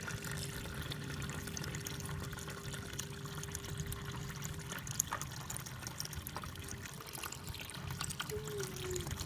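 A thin stream of water pouring and trickling into a plastic tub of muddy water, with a faint steady hum that stops about halfway through, as the water floods and washes through a mud dam.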